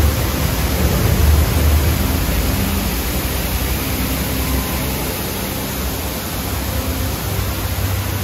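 Dark boat ride ambience: a steady rushing noise with a low rumble underneath, a little louder in the first couple of seconds.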